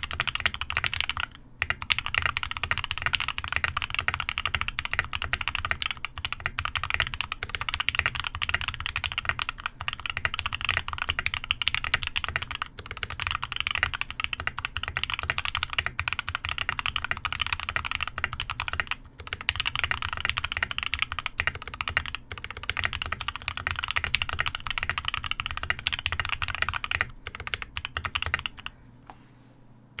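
Fast, continuous typing on a Mode65 mechanical keyboard with lubed Drop Holy Panda X tactile switches on an aluminium plate in an isolated top mount. The keystrokes come as a dense stream with a couple of brief pauses, and they thin out and stop near the end.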